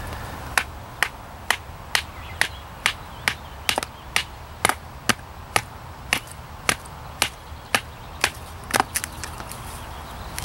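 Camillus Titanium bonded knife driven into wood with a steady run of sharp blows, about two a second, stopping about nine seconds in.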